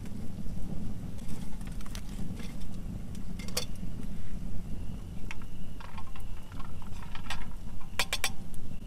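Campfire burning with a steady low rumble and scattered pops and crackles. Near the end come a few quick metallic clinks of a spoon against a small tin pot.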